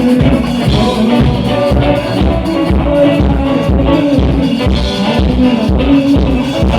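Band playing a song with a steady drum beat under a melodic line.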